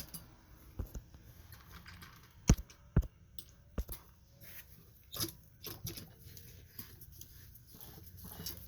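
Small parts and tools being handled on a workbench: light rustling and scraping, with several sharp clicks and knocks, the loudest two about half a second apart.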